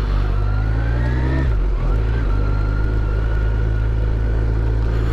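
Kawasaki GTR1400's inline-four engine accelerating at low speed. Its pitch rises for about a second and a half, drops at an upshift, then holds steady.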